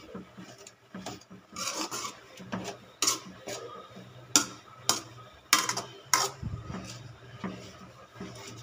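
A metal spoon stirring chopped papaya flowers and dried fish around a stainless steel pan, scraping against the metal in irregular rasping strokes. The sharpest scrapes fall between about three and six seconds in.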